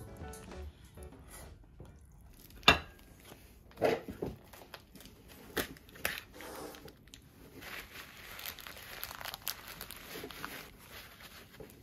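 Plastic bag around a raw beef shank crinkling as scissors cut it open, with a sharp snip about three seconds in and a few smaller clicks after it. Later comes a rustling as paper towels are pressed onto the meat. Background music fades out near the start.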